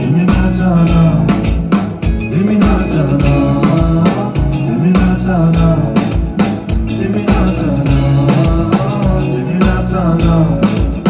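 Live band music with a steady drum beat, bass and guitar, played loud through stage speakers.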